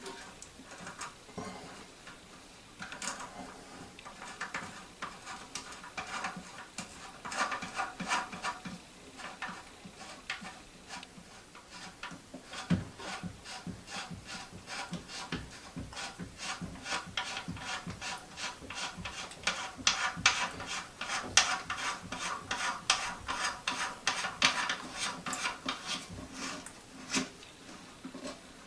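Plastic locknut being threaded by hand onto the shank of a new toilet fill valve under the tank: a long run of rapid scraping clicks of plastic on plastic, thickest in the second half.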